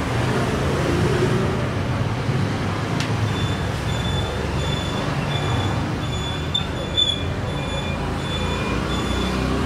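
Steady rumble of street traffic, with a high electronic beep repeating about one and a half times a second from about three seconds in.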